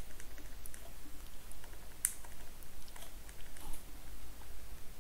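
Pen writing on squared paper: faint scratching and small taps of the pen tip as words are written, with one sharper click about two seconds in.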